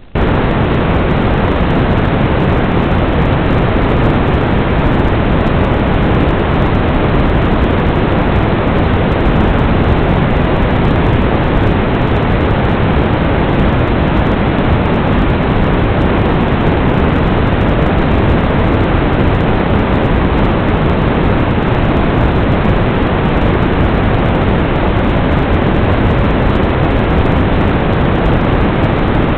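Loud, steady white-noise hiss from an analog FPV video receiver that has lost the drone's signal, cutting in suddenly and running evenly with no other sound in it.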